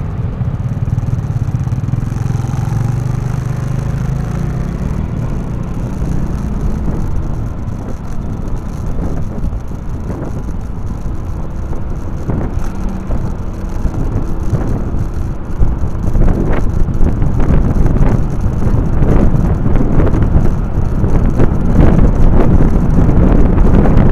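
Motorcycle engine running as the bike pulls away from a stop among other motorbikes and rides along a city road. Wind buffets the microphone, growing louder and gustier in the second half.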